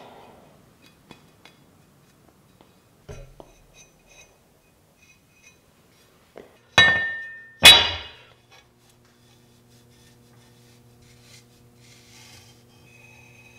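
Steel blade of a 1940s Sharp Cutter cleaver handled with a few light clicks and a knock, then struck twice less than a second apart, each hit giving a loud ringing metallic clink that dies away quickly.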